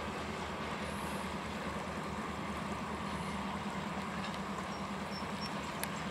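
Slow-moving freight train rolling by, a steady low drone with a higher hum over it, and a light click near the end.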